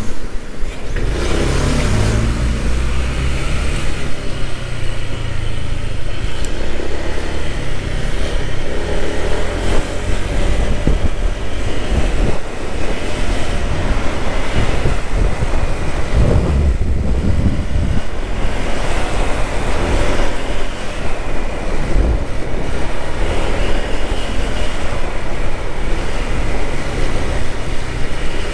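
Motorcycle engine running at town speed as it rides along, under steady road and wind noise on a helmet-mounted microphone.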